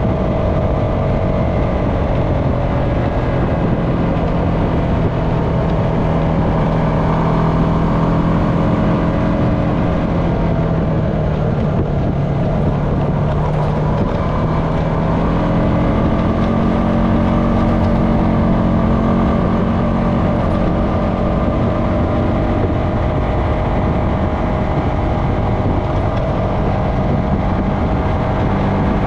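Honda FourTrax Foreman ATV's single-cylinder engine running while riding, its pitch rising and falling slightly as the throttle changes, over steady tyre and wind noise on a dirt road.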